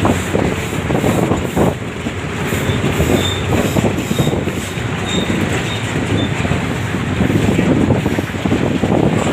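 Ride noise heard from inside a moving road vehicle: engine running and the body rattling steadily as it travels. A few short, faint high squeaks come between about three and six seconds in.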